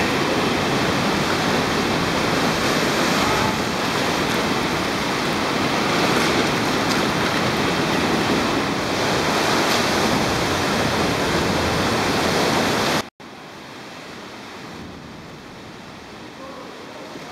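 Ocean swell washing around the kayaks and against the rock at a sea cave mouth, a loud, steady wash with wind on the microphone. About thirteen seconds in it cuts off abruptly to a much quieter steady hiss.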